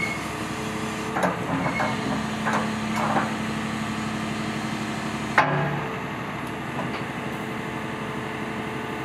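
Caterpillar hydraulic excavator's diesel engine running steadily while the boom and bucket move. Several metallic clanks from the bucket linkage come in the first three seconds, and one loud knock about five seconds in.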